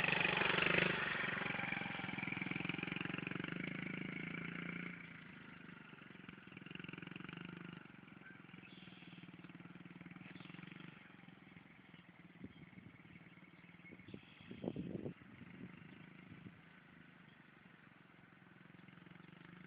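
Small dirt bike engine running as the bike rides a lap, steady and fairly loud for the first five seconds, then dropping away faint as it moves off. A brief louder burst comes about three-quarters of the way through.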